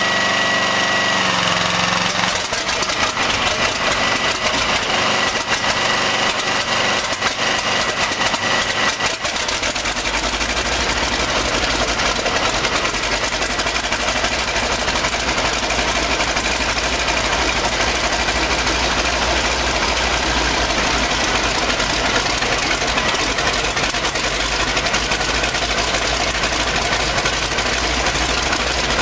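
DC-3's radial piston engine being started. A high whine for about the first second, then the engine cranks over with irregular firing, catches about ten seconds in, and runs on steadily at idle with a deep rumble.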